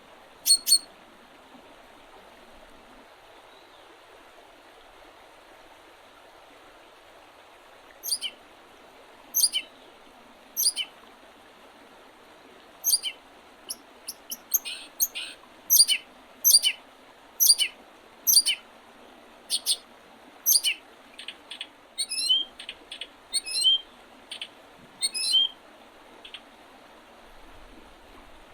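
Wild birds giving short, sharp chirps that drop in pitch, over a faint steady hiss. Two chirps come just after the start and none for several seconds after that. From about eight seconds in they return and grow more frequent, at times several a second, then thin out near the end.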